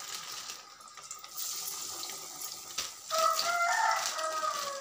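Cabbage masala vadas deep-frying in hot oil, a steady sizzling hiss with fine crackles that grows louder about a second and a half in. From about three seconds in, a drawn-out high pitched call rises over the sizzle and falls slightly at its end.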